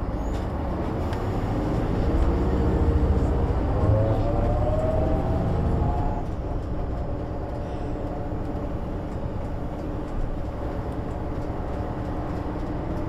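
1998 MAN NG 312 articulated bus's diesel engine and gearbox under acceleration, the engine note and a gear whine rising over the first few seconds. About six seconds in the pull drops away and the bus runs on at a lower, steady level.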